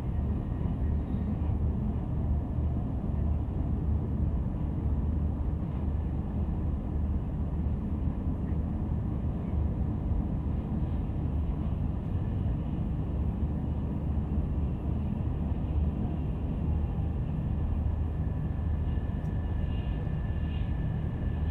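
Steady low rumble of a train running, heard from inside the passenger car, with a faint high whine coming in during the last few seconds.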